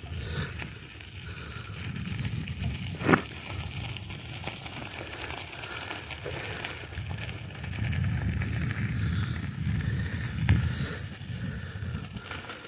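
Bicycle being ridden: tyres rolling on the road with wind rumbling on the microphone, and a sharp knock about three seconds in and another about ten seconds in.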